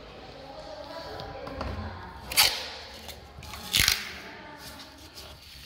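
Two sharp hard knocks about a second and a half apart, over low handling and rustling noise, with another knock right at the end.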